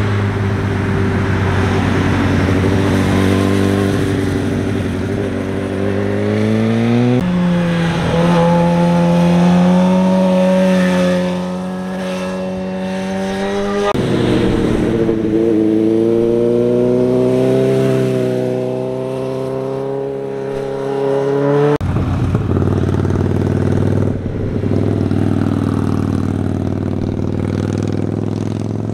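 Motorcycle engines accelerating through a hairpin bend, the pitch climbing as each bike pulls away. Several separate passes follow one another, joined by abrupt cuts.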